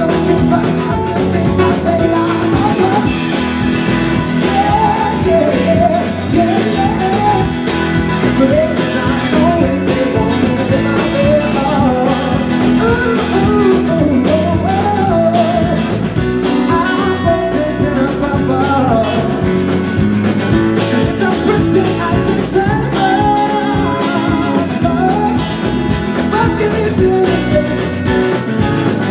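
Live rock band playing an instrumental passage: strummed acoustic guitar, electric guitar and drums keeping a steady beat, with a wavering melodic lead line on top.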